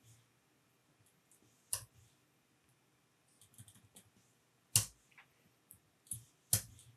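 Computer keyboard keys pressed one at a time: a few separate sharp clicks, the loudest about two seconds in, near five seconds, and twice near the end.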